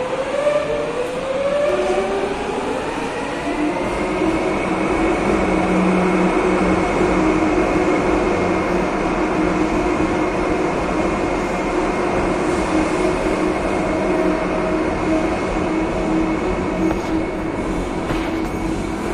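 Madrid Metro 3000-series electric train pulling out of the station and accelerating away: its traction motor whine rises in pitch in steps over the first few seconds, then holds steady over the rumble of the wheels on the rails.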